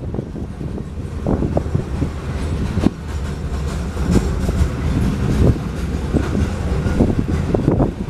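Loaded coal train rolling past a grade crossing: a steady low rumble with irregular clacking of wagon wheels over the rails.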